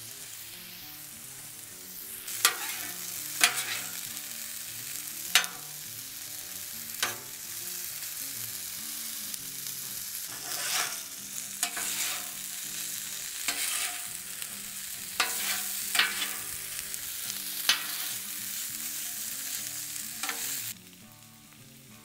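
Diced chicken sizzling on a hot flat-top griddle at about 400 degrees, with a spatula clacking and scraping against the griddle plate about a dozen times as the pieces are tossed for browning. The sizzle drops quieter near the end.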